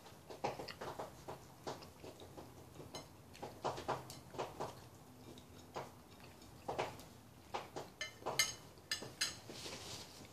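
A fork clicking and scraping against a plate while eating: irregular clicks, with a quick run of sharper clicks near the end.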